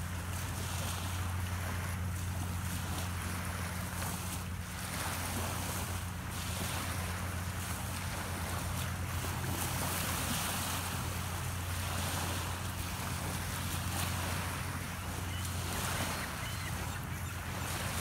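Small waves lapping on a sandy beach, with wind buffeting the microphone and a steady low hum underneath.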